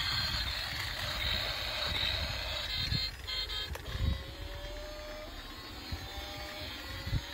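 Battery-powered light-up toy car running on a concrete floor, its small motor and gears whirring, with a couple of dull knocks about three and four seconds in. From about four seconds in, the toy's electronic sound effect plays a slow rising tone, repeated several times.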